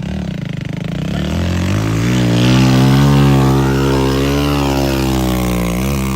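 Heavy vehicle's diesel engine revving hard under load as it climbs a steep slope. The engine pitch rises during the first couple of seconds, then holds high with small dips.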